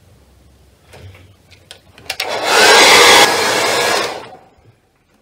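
Hand-held hair dryer blowing over a wet watercolour painting to dry it. It is switched on about two seconds in, runs with an even rushing noise for about two seconds, loudest at first, and then cuts off.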